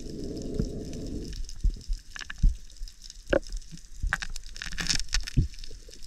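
Underwater sound: a low rush of water for about the first second, then scattered sharp clicks and crackles.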